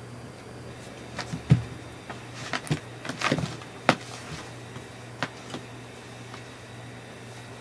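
Soft thumps and scuffs of a cat's paws striking and scrabbling on a rug as it bats at and grabs a cat-teaser toy, a cluster of them in the first half with the loudest thump about a second and a half in. A steady low hum runs underneath.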